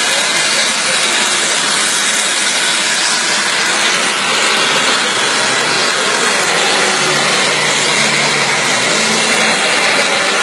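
Engine and propeller of a model aerobatic plane held nose-up in a prop hang. It gives a steady, unbroken drone.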